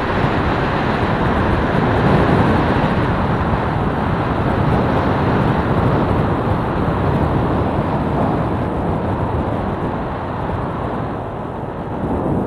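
Wind rushing over the microphone of a camera on a moving motorcycle, mixed with the bike's engine and road noise as it rides along; a steady, loud rumble that eases a little near the end.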